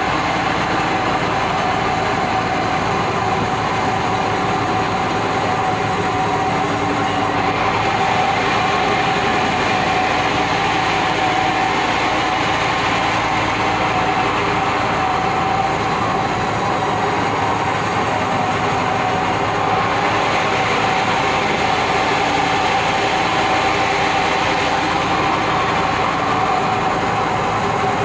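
Sawmill band saw running steadily, a constant mechanical din with a steady whine.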